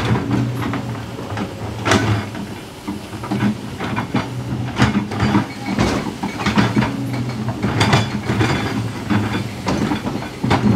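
Kobelco SK200 excavator's diesel engine running under hydraulic load, its drone swelling and easing every few seconds, with frequent sharp knocks and clanks of the working bucket and arm against rock.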